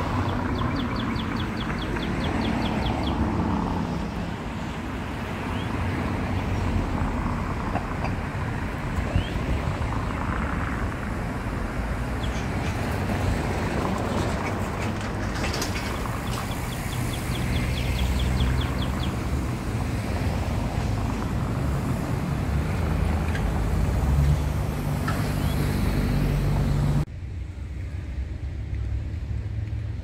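Street ambience: steady road traffic with birds chirping in short, quick trills now and then. The sound drops abruptly to a quieter background near the end.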